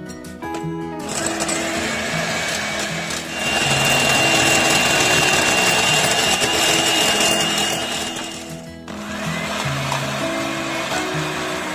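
Moulinex Supermix 150 electric hand mixer running, its beaters whipping egg whites with a dense motor whir that grows louder with a steady whine about three seconds in. It cuts off abruptly just before nine seconds, then starts again, rising in pitch as it speeds up to beat egg yolks with sugar. Soft guitar music plays underneath.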